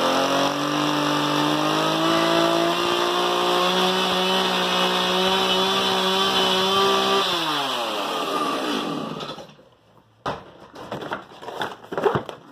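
Gas-powered two-stroke chainsaw running at high revs while cutting open cardboard boxes. About seven seconds in, the revs fall away and the engine winds down to a stop. A few knocks and rustles follow near the end.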